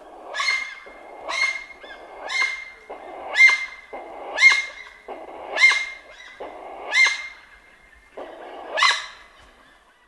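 Plain chachalaca calling: about eight loud, harsh calls roughly a second apart, each a grating rasp ending in a sharp higher note.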